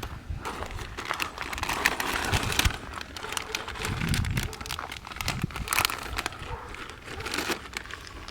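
Plastic parts bag crinkling as hands dig through it, with scattered small clicks.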